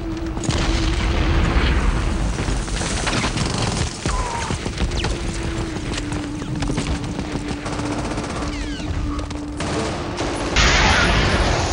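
War-zone battle sounds: rapid, continuous gunfire with explosions, over a low steady drone. A louder blast comes near the end.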